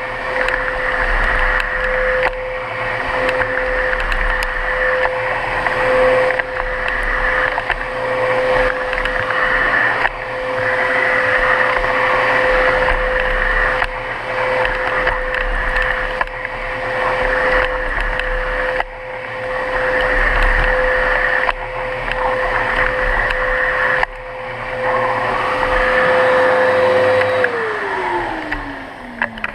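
Miele Capricorn vacuum cleaner running at full suction, a steady motor whine over rushing air, growing louder and softer every couple of seconds as the cleaner is worked across the floor. Near the end it is switched off and the motor winds down, its whine falling in pitch.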